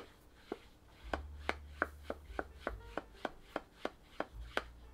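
Flat paintbrush stroking gouache across textured heavy watercolour paper in a quick series of short strokes, about three a second, while blending a gradient.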